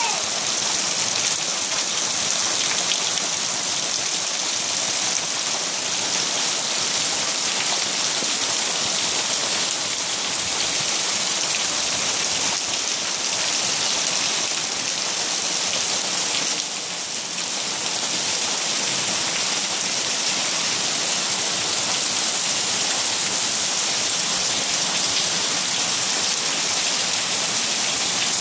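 Heavy rain pouring steadily onto pavement and trees, a dense, even hiss that eases slightly for about a second just past the middle.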